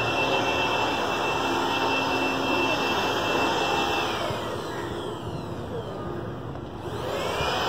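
Steady rushing noise of a jet aircraft passing overhead, taking on a sweeping whoosh from about halfway through as the higher part of the sound dips away and comes back near the end.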